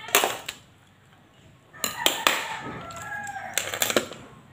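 Hard clacks of metal scissors and a plastic spray bottle being set down on a tiled floor. A rooster crows in the background over the middle.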